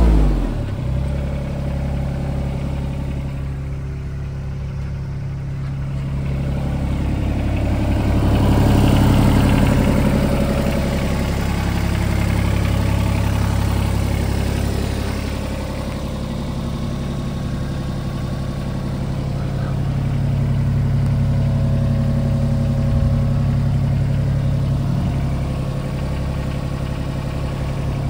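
Small three-cylinder-class diesel engine of a John Deere 26G mini excavator idling steadily, its pitch and level dropping right at the start as it slows to idle.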